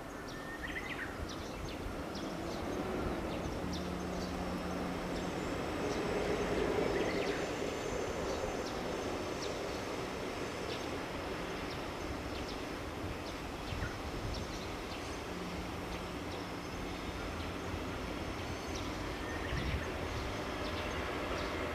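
JR Freight EF81 electric locomotive hauling a container freight train, approaching with a steady rumble of wheels on the rails and a faint low hum.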